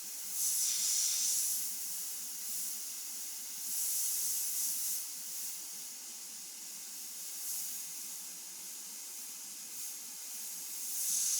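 Airbrush spraying paint, a high airy hiss that swells and eases as the trigger is worked in short passes, strongest about a second in, again around four seconds in and near the end.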